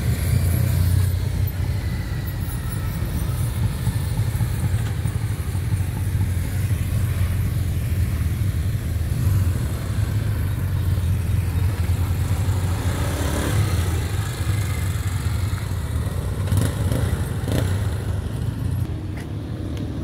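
A line of motorcycles, several of them BMW touring bikes, riding slowly past one after another, their engines running steadily.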